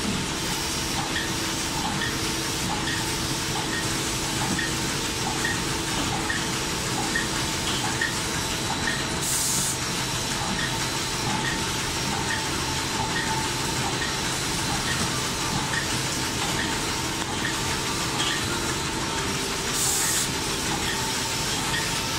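Napkin tissue packing and bundling machine running: a steady mechanical noise with a light, regular tick about three times every two seconds. Two short hisses come through, about nine and a half seconds in and again near the end.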